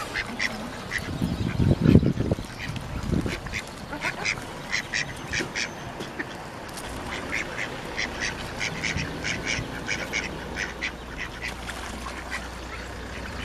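Ducks quacking over and over in short calls, crowding together after being fed, with a brief low thud about two seconds in.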